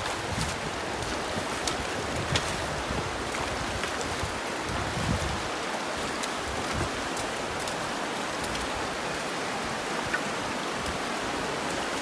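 Shallow Virgin River water rushing over rocks: a steady hiss of flowing water, with scattered light clicks and splashes from hikers wading through it.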